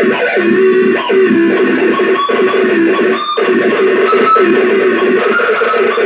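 Handmade analog electronic noise box played by hand, putting out a buzzy, wavering drone whose pitch wobbles and slides, with higher tones shifting above it. Short crackles break in about one, two and three seconds in.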